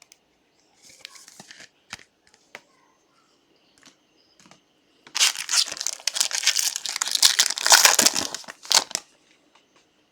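Foil wrapper of a 2024 Topps Finest baseball card pack being torn open and crinkled: a loud stretch of about four seconds, starting about five seconds in, after a few faint clicks and rustles.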